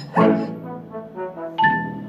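Background music with a brass-like sound: a chord struck at the start fades away, and a new note comes in and holds about one and a half seconds in.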